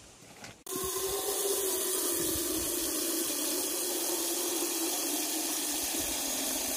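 Water pouring from an outdoor standpipe tap into a cooking pot, a steady splashing hiss that starts abruptly about half a second in.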